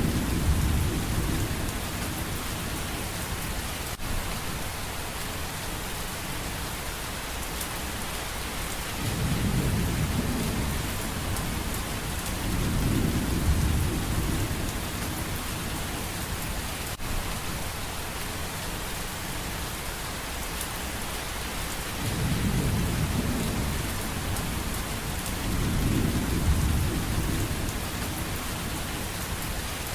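Steady rain hiss with deep thunder rumbles swelling and fading several times underneath.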